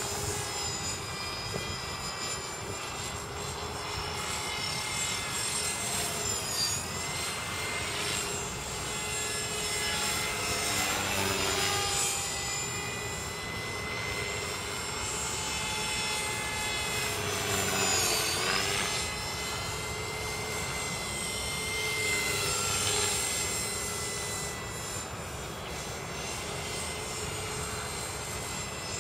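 KDS 450 flybarless electric RC helicopter in flight: a steady high motor-and-rotor whine that swoops down and back up in pitch several times as the helicopter passes and turns.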